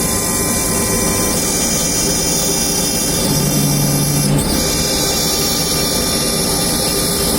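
CNC router running steadily while cutting MDF, with a high-pitched spindle whine over the cutting noise. A lower hum comes in briefly about halfway through.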